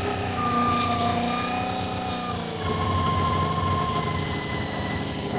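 Honda VFR400 NC24's V4 engine running steadily at a raised idle while its carburettors are synchronised, the note stepping down slightly about two and a half seconds in as a balance screw is turned. Turning the balance screws raises the revs, so the idle has to be wound back down.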